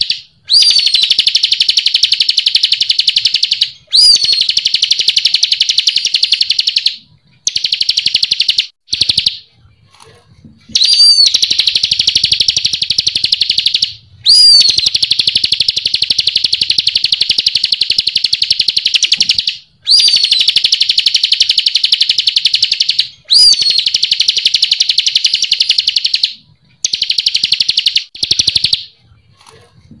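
Bar-winged prinia (ciblek kristal) singing: long, fast, even trills of several seconds each, every one opening with a sharp rising-then-falling note, repeated with short breaks between them.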